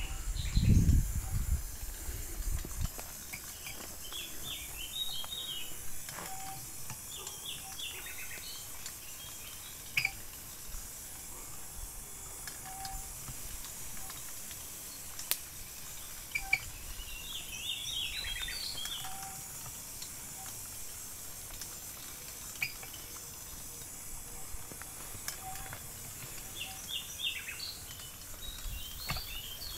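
Small birds chirping in short clusters every few seconds over a steady outdoor hiss. A low rumble fills the first two seconds, and a few single sharp clicks come later.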